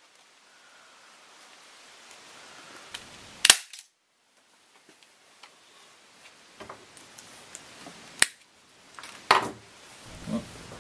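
Sharp snaps of plastic zip ties being cut with a hand tool, with light handling rustle between them. The loudest comes about three and a half seconds in, another near eight seconds, and a softer one about a second after that.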